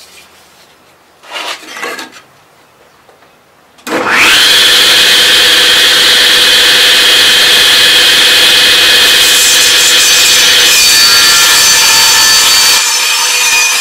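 Table saw switched on about four seconds in, its blade spinning up with a quick rising whine, then running loud and steady. From about nine seconds in the sound roughens as the blade begins ripping into a rimu board.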